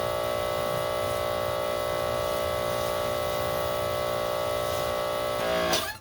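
Electric pressure washer's motor and pump running steadily with a hum over a hiss of spraying water while driving a 15-inch surface cleaner. Near the end the motor winds down with a falling pitch and stops.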